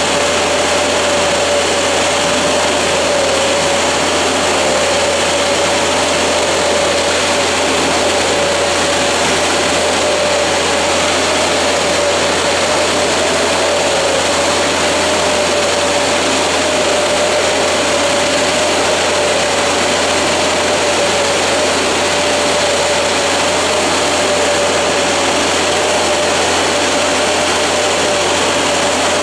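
Oscillating fan orchard sprayer at work: a steady, loud drone of the machine's engine and fans with a rush of air, carrying one slightly wavering hum.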